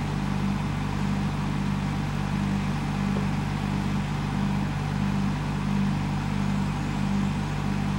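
A motor running steadily: a low, even hum with a slight pulsing in its upper tone.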